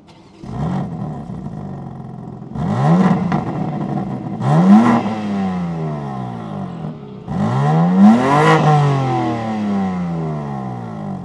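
2024 BMW M2's twin-turbo 3.0-litre inline-six, heard at its quad exhaust outlets, revved several times while parked. Each rev rises quickly and then falls back slowly, and the last two are the highest and loudest.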